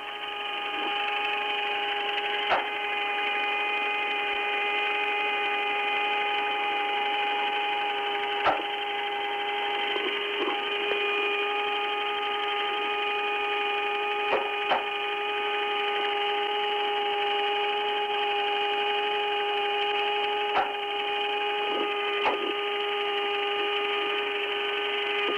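Steady electrical hum and hiss of the Apollo 10 lunar module's onboard audio recording, narrow-sounding like a radio or tape channel, made of a low tone with a higher one above it. A sharp click breaks through every few seconds, six or so in all.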